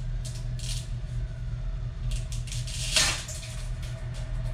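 Bundle of dry spaghetti being snapped in half by hand: a string of sharp cracks and crackles, the loudest about three seconds in, over a steady low hum.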